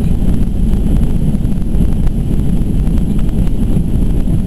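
Steady low rumble of a Boeing 737-200's Pratt & Whitney JT8D turbofans and rushing air, heard inside the passenger cabin as the jet rolls along the runway after landing.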